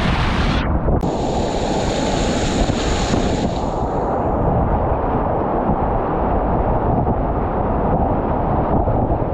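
Whitewater rapids rushing loudly around a kayak. The sound is close and muffled: the hiss cuts out for a moment about a second in, then fades away after about four seconds, leaving a dull, low rushing.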